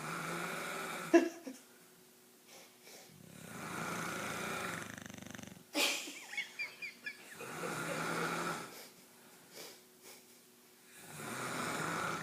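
Slow, regular snoring, a long snore every three to four seconds. A short, sharp noise about a second in is the loudest moment, and a second one comes just before six seconds.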